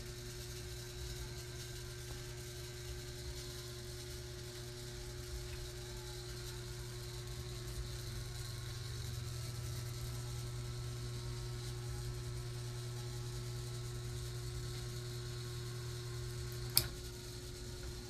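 Portable five-blade hanging mini ceiling fan running, a quiet steady motor hum with a faint whir. A single sharp click sounds near the end.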